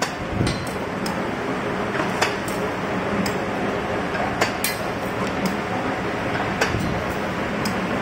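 Wire-forming machine making scaffold split pins from 2.5 mm wire, running with a steady mechanical noise and sharp metallic clicks at uneven intervals, about one or two a second.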